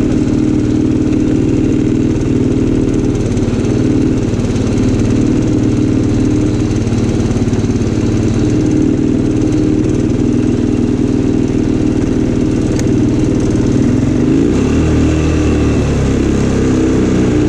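Linhai 300 2x4 ATV engine running steadily as the quad is ridden along a dirt track; about fourteen seconds in the engine note shifts and a deeper rumble comes up.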